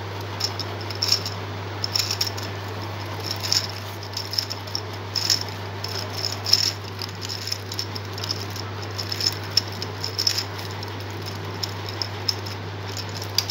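A plastic gear cube puzzle being twisted by hand: its meshing gears and layers give irregular rattling clicks and clacks, over a steady low hum.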